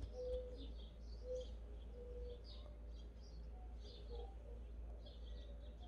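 Faint birds chirping in the background: scattered short high chirps and a few brief lower notes over a steady low rumble of outdoor background noise.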